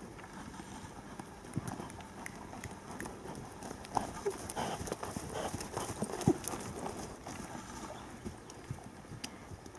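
Horse's hoofbeats on arena sand, a run of dull strikes that is loudest about four and six seconds in as the horse passes close.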